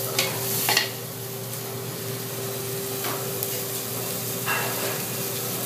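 A metal spoon clinks and scrapes against a large aluminium stockpot as nopales are stirred while they fry in oil. There are two sharp clinks in the first second, then a steady frying hiss over a constant hum.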